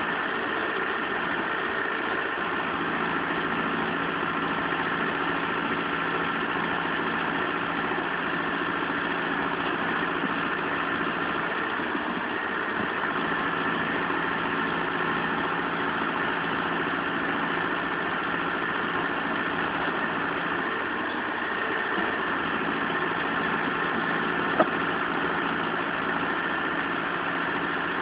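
Mahindra Arjun 605 tractor's diesel engine running steadily at an even speed, with one sharp click near the end.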